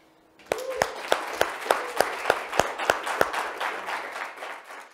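Audience applauding, starting about half a second in, with one clapper's sharp claps standing out at about three a second; the applause fades in the last second.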